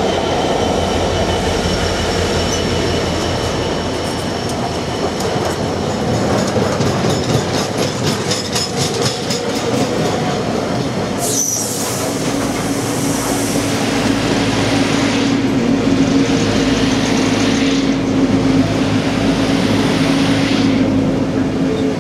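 A Class 66 diesel locomotive's two-stroke engine running as it passes close by, followed by a long rake of intermodal container flat wagons rolling past with rhythmic wheel clatter over the rail joints. A brief high wheel squeal cuts in about halfway through, and a steady low hum runs under the wagons after it.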